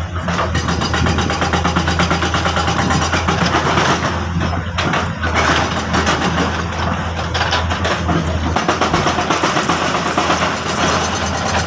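Excavator's diesel engine running steadily, with a fast, even clatter over its low hum.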